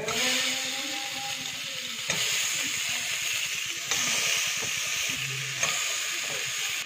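Chopped tomatoes and broccoli sizzling in hot ghee in a pressure cooker as they are stirred with a steel spatula: a steady frying hiss.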